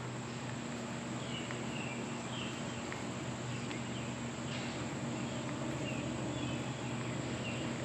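Insects chirping in short repeated calls, over a steady low hum.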